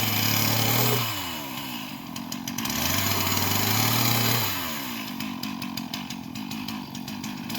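Two-stroke chainsaw running at high revs, then dropping back toward idle, twice over, as it cuts firewood.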